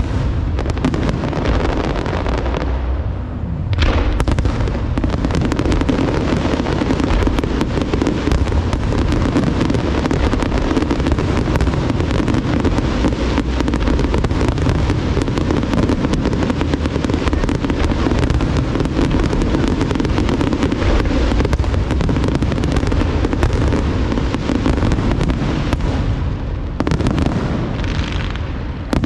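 Large aerial fireworks display: a dense, continuous barrage of shell bursts and crackling, with a fresh sharp volley about four seconds in and a brief lull near the end.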